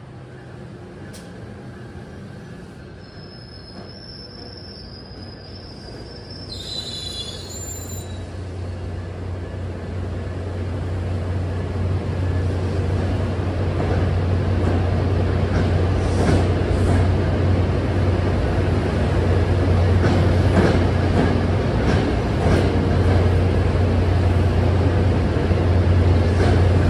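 NJ Transit commuter train rolling past along the platform, a steady low rumble of wheels and running gear that grows louder throughout. Brief high-pitched wheel squeals sound in the first few seconds, and scattered clicks of wheels over rail joints come in later.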